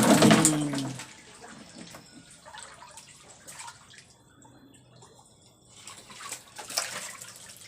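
Water splashing and dripping in irregular bursts, heaviest near the end, after a brief loud voice-like sound in the first second.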